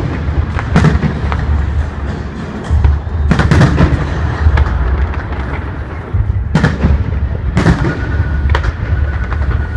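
Aerial fireworks shells bursting overhead: sharp bangs every second or two, some in quick succession, over a steady low rumble.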